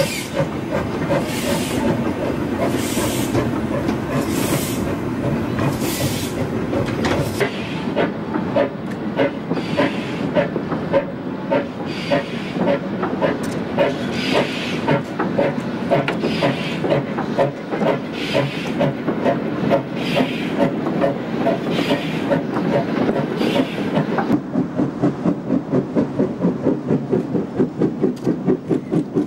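GWR pannier tank steam locomotive No. 1369 working a goods train: rhythmic exhaust beats and steam hiss, with wagon wheels rolling over the rails. Near the end the beats come as a fast, even pulse.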